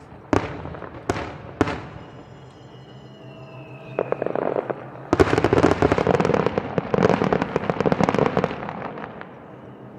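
Fireworks: three sharp bursts, then from about four seconds in a dense, rapid barrage of bangs and crackling, as in a star mine, which fades out near the end.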